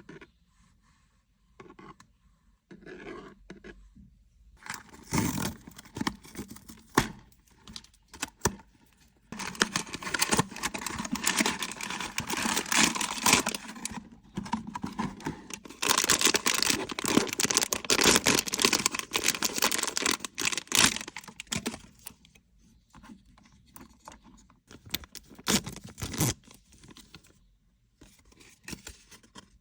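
Blind-box packaging being opened by hand: scattered taps and rustles, then two long stretches of tearing and crinkling wrapping around the middle, followed by lighter handling sounds.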